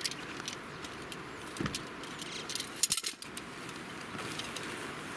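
Shock-corded tent pole sections clinking and clicking together as they are unfolded and joined, with a few clicks about one and a half seconds in and a quick run of them around three seconds in.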